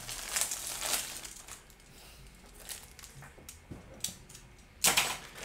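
Clear plastic bag of plastic model-kit sprues crinkling as it is handled. The rustling is loudest in the first second, dies down to a few light clicks, and comes back in a short loud burst near the end.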